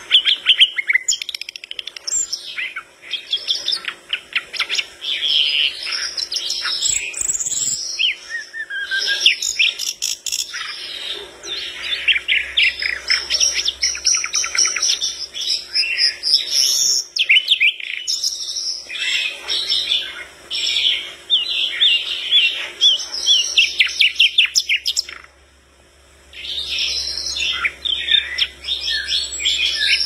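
Brown-chested jungle flycatcher (sikatan londo) singing a long, busy song of rapid trills and chattering phrases, with one short pause near the end.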